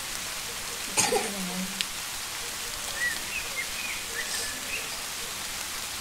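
Steady rain falling, an even hiss throughout. A sharp knock about a second in, and a few short high chirps in the second half.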